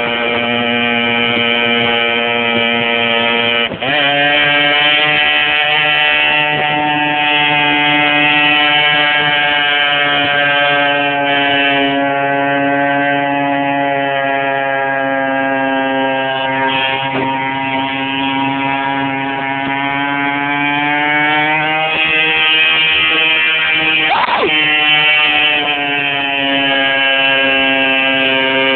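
Small motorcycle engine running steadily under way just ahead, with a steady buzzing note. The note dips briefly about four seconds in, settles slightly higher, and rises again later on.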